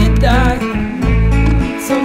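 Background music: a song with guitar over a pulsing bass line.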